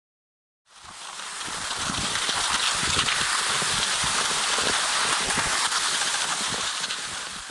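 Wind buffeting the camera's microphone over a steady rushing hiss while skiing across snow in blowing conditions. It begins abruptly just under a second in.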